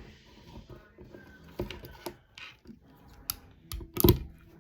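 Small objects being handled and set down on a workbench: scattered clicks and knocks, with a louder clatter about four seconds in.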